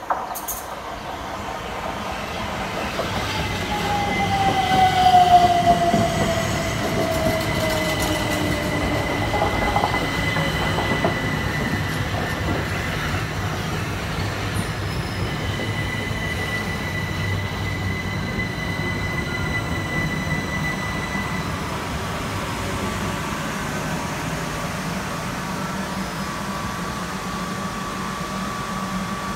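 Southern Class 377 Electrostar electric multiple unit running into the platform and braking. A falling whine as it slows is joined by a high steady squeal. About twenty seconds in the squeal stops and the train settles into a steady electrical hum as it stands.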